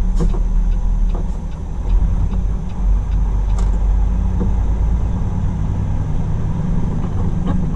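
Semi truck's diesel engine running steadily, heard from inside the cab as the truck creeps in at low speed, with a few faint knocks and clicks over the low rumble.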